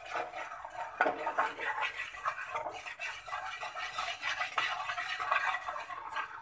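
A spatula stirring and scraping a thin spice paste of turmeric, chili powder, salt and biryani masala in a little oil around a frying pan. The scraping strokes are quick and irregular, with a sharper stroke about a second in.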